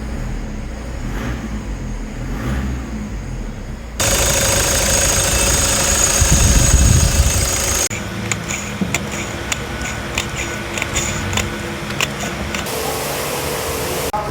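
A 2014 Toyota Innova's engine running at idle, with the growling noise from the engine bay that comes from a stiff alternator pulley putting excess load on the V-belt. It is heard as several clips cut together, changing abruptly about four seconds in and again about eight seconds in, and loudest between those two cuts.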